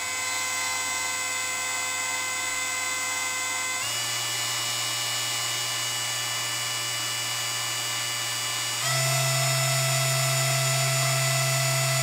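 Small 20,000 RPM DC spindle motor of a mini CNC router running under PWM speed control with a steady whine. It steps up in speed twice, about four seconds in and about nine seconds in, each step raising the pitch; the second step is also louder.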